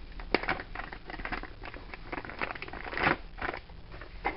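Irregular clicks, knocks and rustles of a cordless screwdriver battery pack being handled. The loudest knocks come just after the start and about three seconds in.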